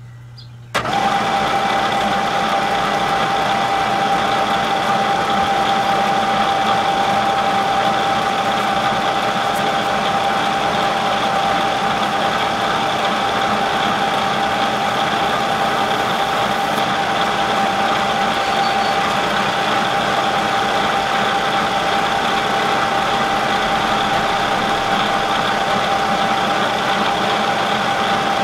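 Bridgeport milling machine with an end mill climb milling a 40-thousandths cut in steel, starting abruptly about a second in and then running steadily with a constant whine over the cutting noise.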